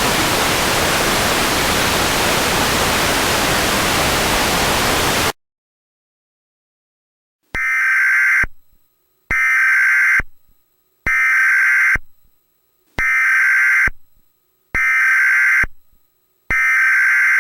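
A burst of loud, steady broadcast static that cuts off abruptly into dead silence. About two seconds later comes an electronic alert tone: six buzzy beeps, each about a second long, repeating roughly every two seconds.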